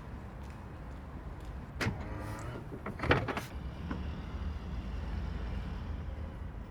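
Sharp clicks and a short whirring tone from a car's door mechanism over a steady low rumble.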